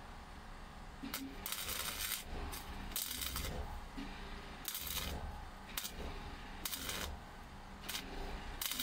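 MIG welder crackling in short bursts, about nine in all with brief pauses between, as a replacement sheet-steel wheel arch panel is tack- and stitch-welded onto the van body.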